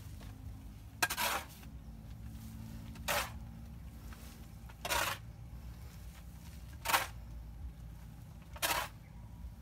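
Shovel scooping and tossing crumbly, gravelly composting chicken manure: a short gritty scrape about every two seconds, five in all, over a low steady rumble.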